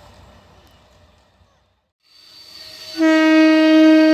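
Horn of an approaching electric local train (EMU), one loud steady blast that starts about three seconds in and is held. Before it, the faint sound of a distant train dies away to a moment of silence, then a high thin ringing rises as the next train nears.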